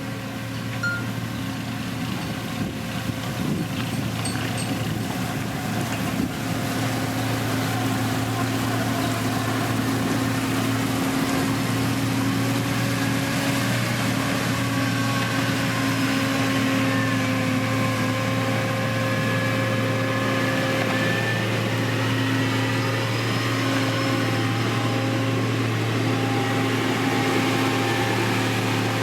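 Diesel engine of a heavy road-construction machine, a motor grader or road roller, running at a steady pitch. It grows slightly louder over the first several seconds, as if the machine is coming closer or working harder.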